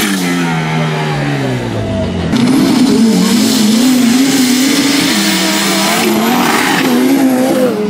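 Off-road 4x4 drag-racing engines at full throttle on a dirt strip. The engine note winds down over the first two seconds. Then a sudden, louder run starts, with engines revving hard and the pitch rising and dropping several times as they pull through the gears.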